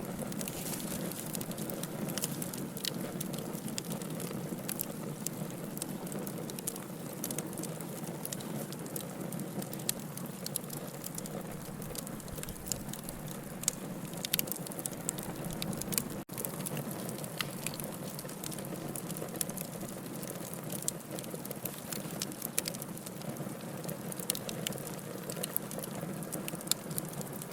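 Wood fire burning in a fireplace: a steady hiss with many irregular sharp crackles and pops, briefly cutting out for an instant a little past halfway.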